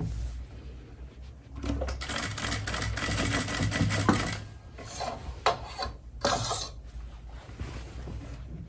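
Sewing machine stitching a trouser zipper fly: one run of about two seconds, then two short bursts of stitching.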